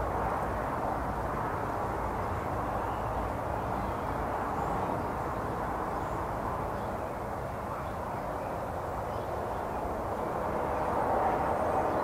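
Steady outdoor background rumble, low and even, growing a little louder near the end.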